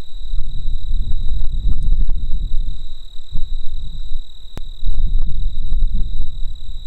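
Wind buffeting the microphone in gusts, a loud low rumble that rises and falls, with a steady high-pitched whine beneath it and a single sharp click about two-thirds of the way through.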